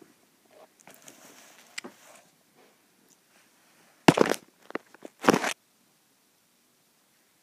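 Close handling noise from the phone's microphone rubbing against the cat's fur: soft rustling, then two loud rustling scrapes about a second apart.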